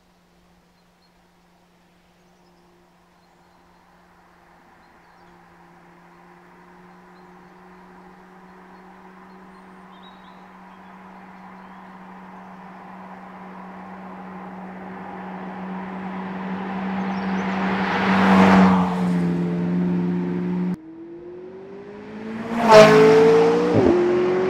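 McLaren 675LT Spider's twin-turbo V8 approaching from far off, its steady engine note growing louder over many seconds until the car sweeps past about eighteen seconds in. The sound breaks off suddenly, and the car passes again a couple of seconds later, louder still, its engine note climbing as it accelerates away.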